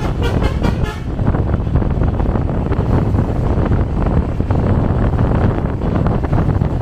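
A short blast of a bus's multi-tone basuri telolet horn, with wavering pitch, ending about a second in, over a steady low rumble of the moving vehicle.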